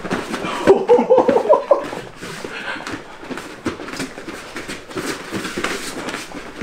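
Bare feet thumping and shuffling on foam mats during a karate-versus-capoeira sparring bout, with a brief voice about a second in.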